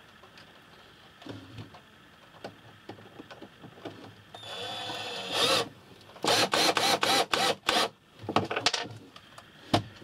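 Cordless drill-driver driving screws into wood: a run of about a second with a rising whine, then several short trigger bursts, and a sharp knock near the end.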